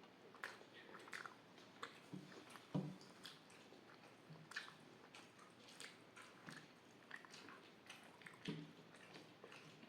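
Close-up mouth sounds of a person chewing a mouthful of rice and cooked vegetables: quiet, irregular wet smacks and clicks, with a soft low thump about three seconds in and another near the end.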